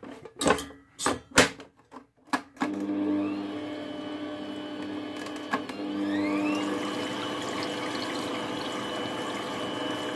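Electric stand mixer: a few sharp knocks and clicks as the beater is fitted and the head lowered, then the motor starts about two and a half seconds in and runs steadily, beating a thin liquid mix in a steel bowl. Near the middle its whine rises in pitch as the speed is turned up, then holds.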